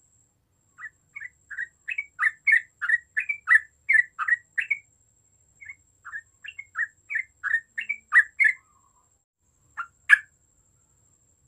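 Yellow-vented bulbul singing a rapid, chattering run of short notes, about three to four a second, with a brief break in the middle, then one louder single note near the end.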